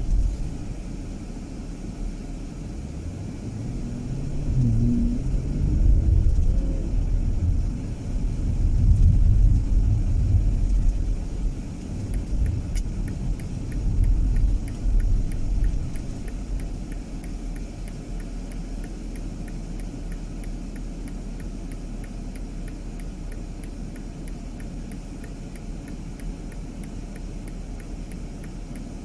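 A car driving, with a steady low rumble of engine and road that swells louder between about four and sixteen seconds in. From about twelve seconds a turn-signal indicator ticks in an even rhythm.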